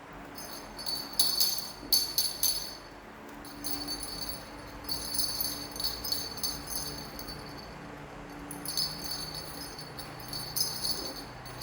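A small jingle bell shaken in irregular bursts of jingling, loudest in a quick cluster about a second or two in, then recurring on and off.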